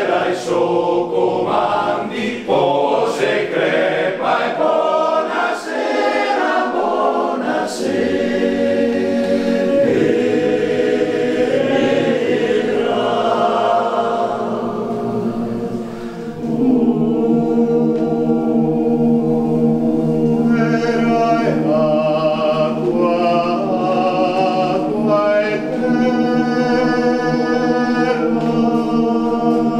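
All-male choir singing a cappella in several parts. Shorter, moving notes in the first half give way, after a brief softening about halfway through, to long held chords.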